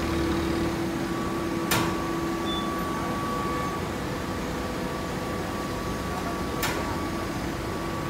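Steady machine hum of a running full-automatic horizontal hay baler plant, with a couple of constant tones over it. Two sharp knocks, one about two seconds in and one near seven seconds.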